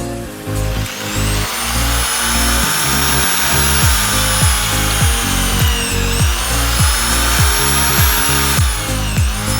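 A power tool motor runs with a steady high whine, over music with a steady beat. The whine dips in pitch twice, briefly, and recovers each time.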